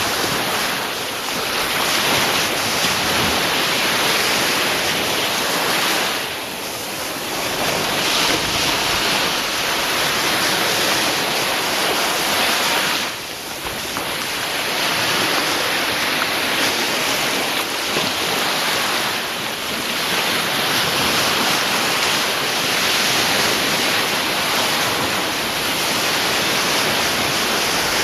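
Ocean surf: waves breaking in a continuous loud wash, easing briefly about every six seconds between sets of breakers.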